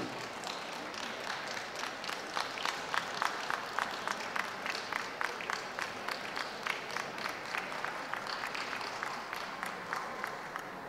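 Audience applauding, the claps falling into a steady rhythm of about three a second and dying away near the end.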